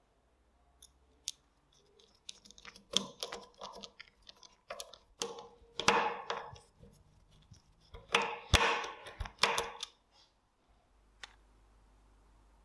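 Bit screwdriver turning out the cross-head screws of a pistol-type nail gun's grip panel: bursts of metal clicks and scraping at the screw heads, in several groups and loudest in the second half.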